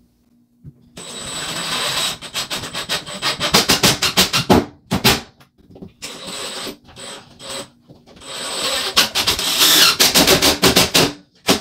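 Cordless impact driver running in several bursts, with rapid hammering clicks and a thin high whine, as it drives drywall screws through the drywall into a plywood backing strip. The first burst starts about a second in and lasts nearly four seconds. Two shorter bursts follow, and the longest, loudest burst comes near the end.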